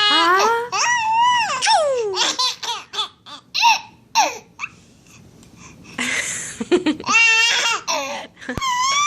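A baby of about seven months laughing in high, gliding squeals and short giggles, in bursts, with a quieter pause of about a second in the middle.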